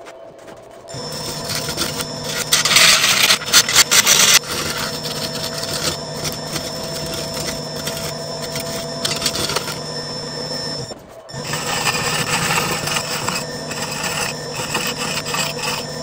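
Wood lathe running while a hollowing tool cuts into a spinning burl-and-resin blank: a steady machine hum under a harsh scraping of the cut. The cutting is loudest about two to four seconds in, breaks off for a moment about two-thirds through, then resumes.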